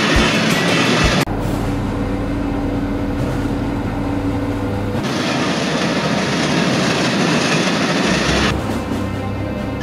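A motorized toy train running along its track, the sound changing abruptly a few times.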